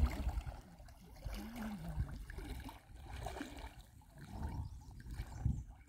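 Water swishing and sloshing around the legs of people wading through a shallow river, with faint talking in the background.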